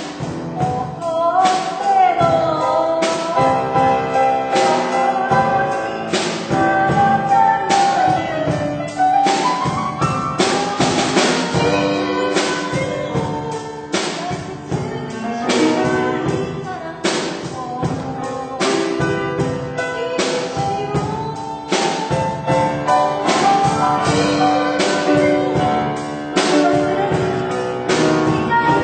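A song from a stage musical: a singing voice carries a melody over instrumental accompaniment with a steady drum beat.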